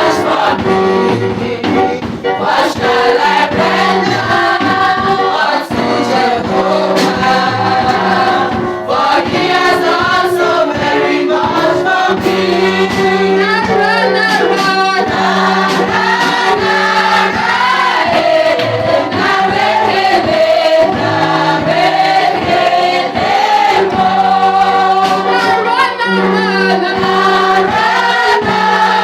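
Choir singing a gospel song over a band, with steady held bass notes and a regular beat.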